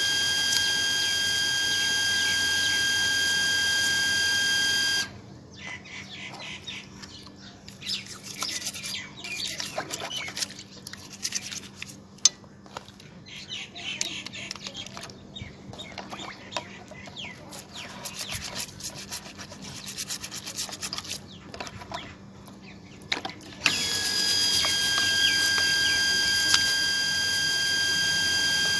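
Toothbrush bristles scrubbing small plastic toy-car parts in a pan of water, with irregular scratchy rubbing and light clicks of plastic. A loud steady high whine runs for about the first five seconds, cuts out abruptly, and returns just as abruptly near the end.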